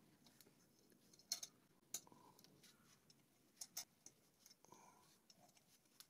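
Faint, sharp clicks at irregular intervals as snap-in T-nuts are pressed into the slots of an aluminium extrusion frame, the loudest two in the first two seconds.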